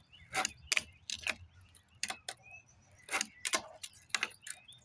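Tech Deck fingerboard clacking on a hard tabletop as flip tricks are popped and landed: about a dozen sharp, irregular clicks and knocks of the board's tail and wheels.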